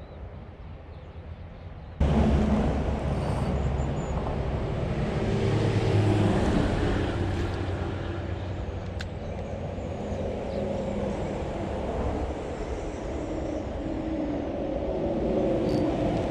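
Steady rumble of road traffic, starting abruptly about two seconds in after a quieter stretch and swelling about six seconds in.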